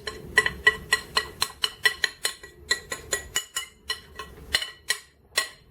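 Cutlery clinking and tapping against a dish while crumble topping is spread over fruit: a quick run of short, ringing clinks, about three or four a second.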